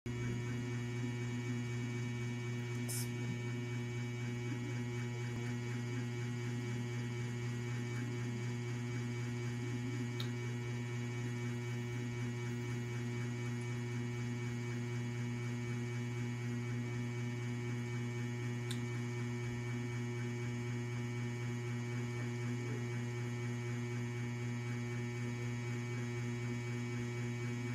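Steady low electrical hum with higher overtones, unchanging throughout, with a few faint small clicks.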